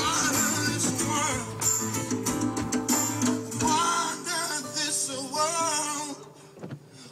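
A song with a sung vocal line over guitar, playing on the car radio; it drops away about six seconds in.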